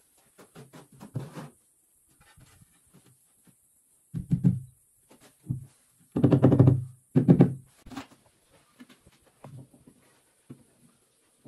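Irregular knocks and thuds: a few light taps early on, then heavier low thuds about four seconds in and a cluster of them between six and seven and a half seconds.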